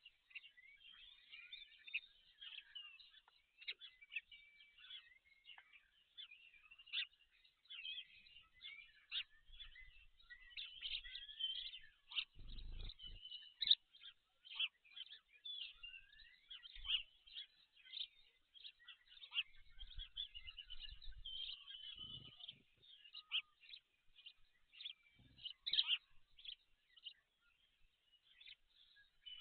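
Small birds chirping and singing together in a dense chorus of short, overlapping high notes. A few brief low rumbles come through about halfway and again later on.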